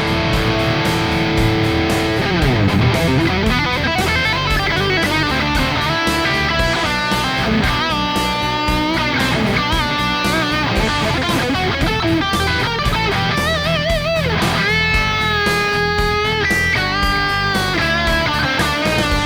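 Electric guitar played through a Sonicake Pocket Master modeler on a high-gain distorted tone. It plays lead lines with a pitch slide about two to three seconds in, fast note runs, and held notes with wide vibrato.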